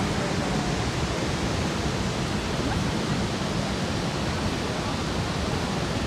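Horseshoe Falls at Niagara Falls: a steady, unbroken rush of falling water, heaviest in the low end.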